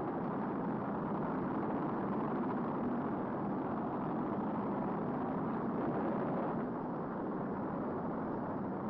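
Saturn V rocket's five F-1 engines firing at liftoff: a steady, dense rumbling noise with no distinct tones, easing slightly about two-thirds of the way through.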